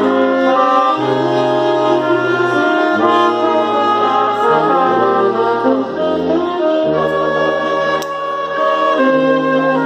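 Brass ensemble with trumpet and trombones playing a hymn in several parts, holding sustained chords over a low brass bass line, the harmony moving about once a second.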